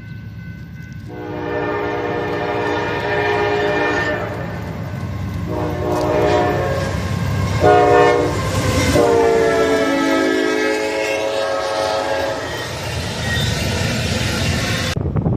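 Train horn chord, played pitched down, sounding in blasts in a long, long, short, long pattern over the rumble and wheel clatter of the moving train. The last long blast dips slightly in pitch.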